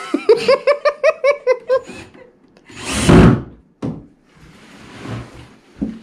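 A person laughing, a quick run of falling "ha" syllables for about two seconds, then a loud, short rush of noise about three seconds in followed by a sharp click.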